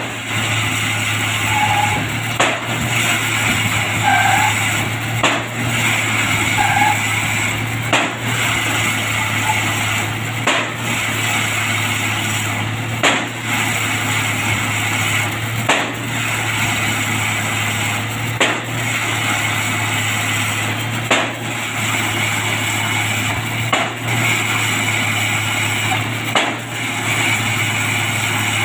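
Drop-hammer pile driver driving a precast concrete pile: the hammer strikes in a slow, even rhythm, about once every two and a half to three seconds, over the steady running of the rig's winch engine.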